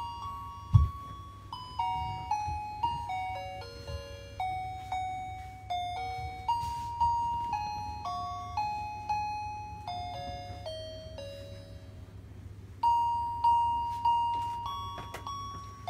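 A simple electronic chime melody played one note at a time, each note struck and fading like a doorbell tone, in a Christmas-tune style; the tune drops quieter for a moment and comes back louder near the end. A single thump sounds about a second in.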